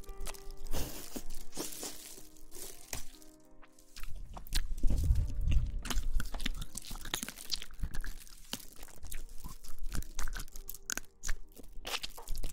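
Close-miked ASMR rustling: dense, irregular crinkly crackles and scratches, heavier around the middle, over soft background music.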